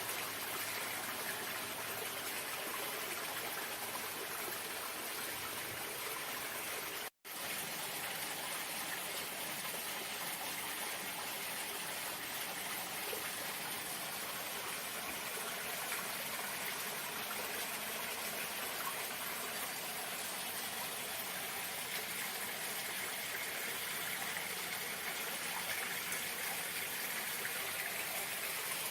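Running water, a steady even rush with no pauses, cut out to silence for an instant about seven seconds in.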